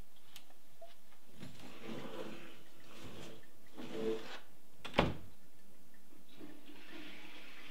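A pleated folding door is slid across with a sliding, rustling noise, then shuts with a sharp click about five seconds in, the loudest sound here.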